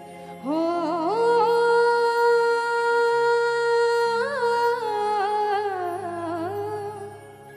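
A woman singing one long held note into a microphone: her voice slides up about half a second in, holds steady for about three seconds, makes a brief ornamental turn, then drifts slowly down and fades. A low steady drone sounds underneath.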